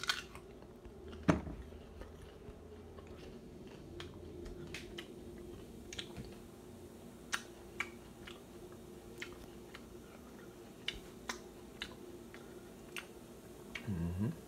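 Oil popping and spitting now and then around a slice of puffball mushroom frying in a nonstick pan: scattered sharp pops over a steady low hum. A single sharp knock about a second in is the loudest sound.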